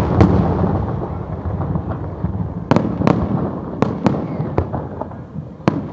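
Aerial fireworks going off: a heavy rumbling barrage that slowly fades, with sharp cracks of shells bursting at uneven intervals, several in quick succession in the second half.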